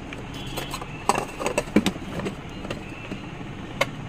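Scattered short plastic clicks and knocks as a rechargeable LED torch's plastic housing and reflector are handled and fitted back together, over a steady background noise.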